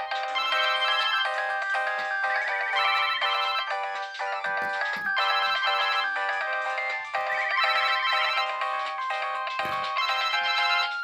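Dozens of mobile phone alarms going off together: a dense, loud jumble of overlapping ringtone melodies and beeps, none of them standing out.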